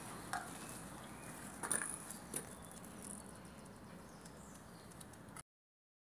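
Faint outdoor ambience with a few short, faint ticks, then the sound cuts out to dead silence about five seconds in.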